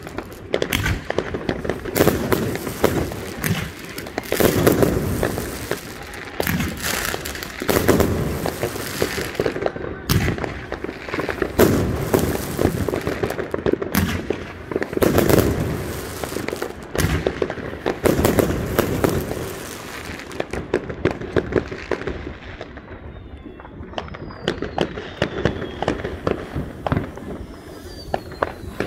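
Many fireworks going off at once: a dense run of bangs and crackling with deeper booms. Near the end the bangs thin out and a few whistles fall in pitch.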